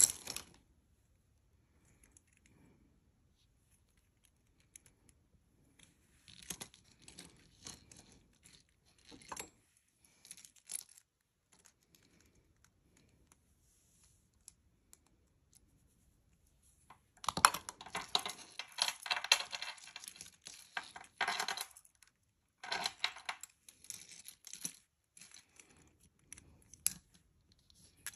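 Gold-tone metal costume jewelry clinking and rattling as it is handled, in scattered bursts of small clicks, the busiest and loudest stretch a little past the middle.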